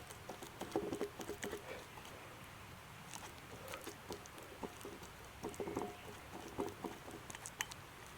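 Fork mashing a banana: faint, irregular clicks and soft taps.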